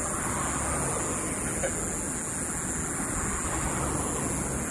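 Steady outdoor background noise, a low rumble with a hiss over it, and one faint click about one and a half seconds in.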